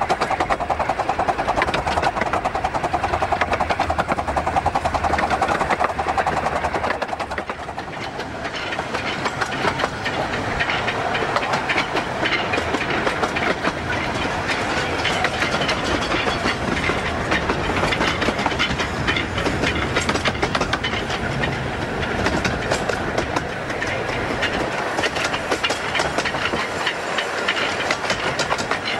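Running noise heard from a carriage of a 15-inch-gauge miniature railway train hauled by the Greenly 4-6-2 steam locomotive 'Northern Chief': steady wheel clatter over the rail joints and the rattle of the coach. It grows a little quieter about seven seconds in.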